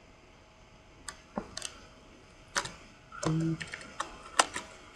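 Computer keyboard keys clicking as a title is typed: a sparse run of single keystrokes starting about a second in.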